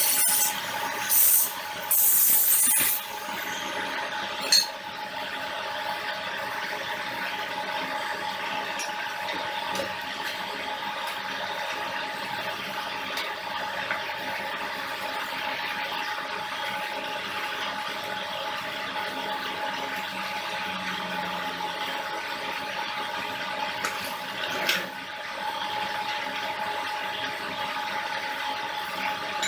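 Handheld angle grinder cutting metal in two short bursts during the first three seconds. After that a steady mechanical whir with a fixed high tone runs on, broken by a few sharp clicks, the loudest near the end.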